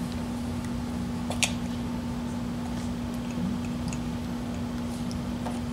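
Steady low hum with a few small clicks from a seal being pressed by hand into a Harley-Davidson Shovelhead brake master cylinder, the sharpest click about one and a half seconds in.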